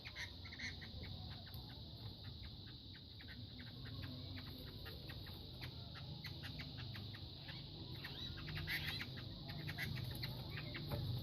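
Fighting gamecocks clucking, a run of many short sharp clicks and clucks, over a steady high-pitched hum.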